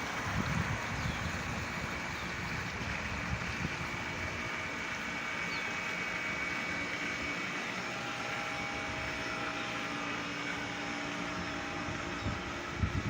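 Outdoor ambience: wind rumbling on the microphone, with a steady motor hum of several held pitches through the middle, typical of a vehicle engine nearby.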